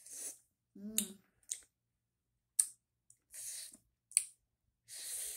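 A person's mouth sounds while her mouth burns from a hot, spicy sauce: sharp lip and tongue smacks, and hissing breaths drawn in through the teeth, with a short voiced grunt about a second in.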